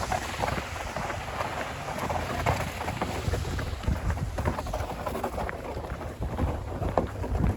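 Footsteps crunching through packed snow with a sled scraping along behind, an irregular run of crunches over a steady hiss.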